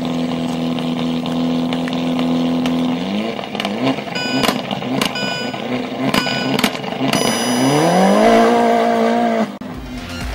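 Rally-car engine sound, from an RC Subaru Impreza WRC rally car: a steady idle, then irregular blips with sharp cracks, then revving up to a higher steady note that cuts off suddenly.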